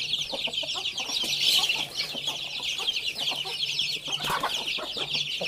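A flock of young chickens peeping continuously in a dense chorus of short, high, falling peeps, with occasional lower clucks.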